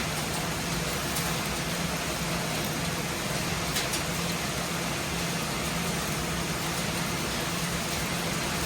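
Recycling-line machinery running steadily: a constant hiss with a low hum and a few faint, scattered ticks.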